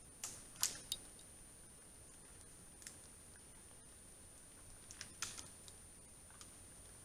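Moose browsing on branches: sharp twig snaps and crackles, a cluster in the first second and another about five seconds in, with a single snap in between.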